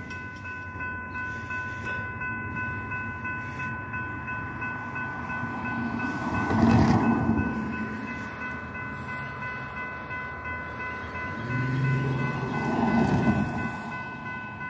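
Grade-crossing warning bell ringing steadily as a Norfolk Southern freight approaches from a distance. A louder rush swells and fades about seven seconds in, and the locomotive's horn sounds faintly near the end.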